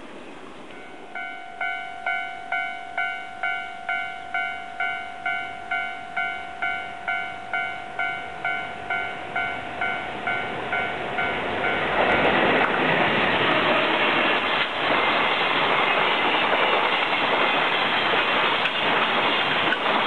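Japanese level-crossing warning bell dinging about twice a second. About twelve seconds in, a freight train arrives and passes at speed, its wheels rumbling and clicking over the rail joints as the wagons go by.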